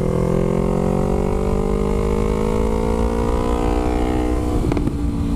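Yamaha YZF-R3's parallel-twin engine through a DG V2 full exhaust system, its note rising slowly as the bike accelerates and then falling as the throttle closes, with a sharp exhaust pop near the end.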